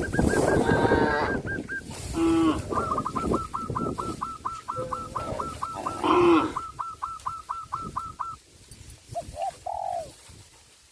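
Farmyard bird sounds: a rapid run of identical short chirps at about four a second, broken by a few louder poultry calls, then soft cooing of doves near the end.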